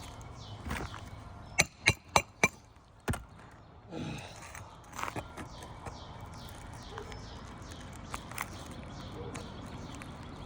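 Sharp hammer strikes on a metal shingle ripper driven under an asphalt shingle to catch and pull a high-nailed roofing nail: four quick hits in a row, one more a second later, then a scrape and a few lighter knocks.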